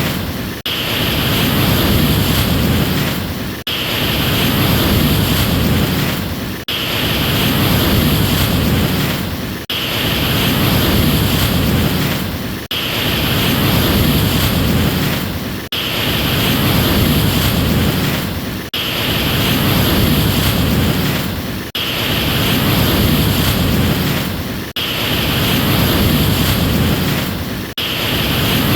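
Ocean surf noise, a short stretch of wave wash looped over and over: the same rushing swell repeats about every three seconds, each time cut by a brief dip before it starts again.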